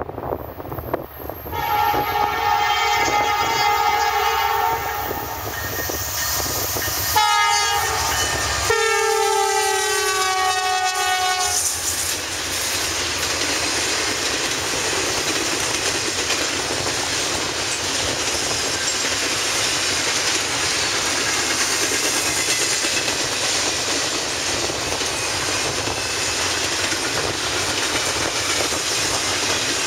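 Freight locomotive's air horn sounding two long blasts, the second dropping in pitch partway through as the locomotive goes by. Then a double-stack container train rolling past, its wheels on the rails making a steady noise.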